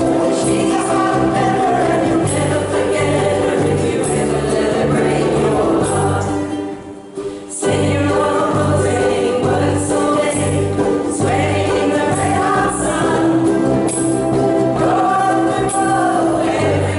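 A ukulele group strumming a country song over a pulsing bass line, with several voices singing. The music drops out briefly about six seconds in, then picks up again.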